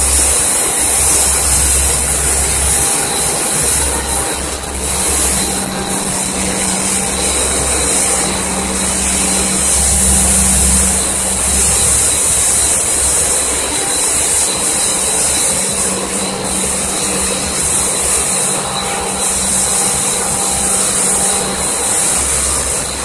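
Snack food production line machinery running: a loud steady hiss over a low hum that drops in and out several times.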